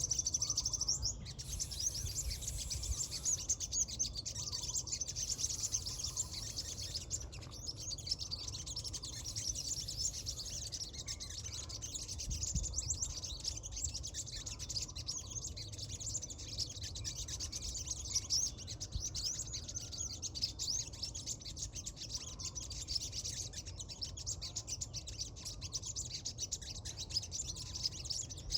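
Small birds chirping: a dense, continuous stream of rapid high chirps, over a low rumble.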